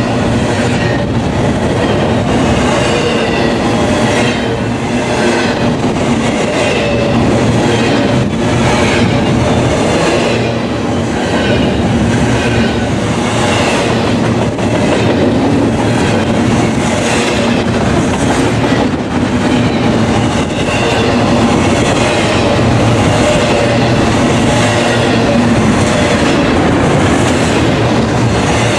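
Double-stack intermodal container train's well cars rolling past close by: a loud, steady rumble of steel wheels on rail, with repeated clicks as the wheels cross rail joints and a faint wavering high-pitched wheel squeal.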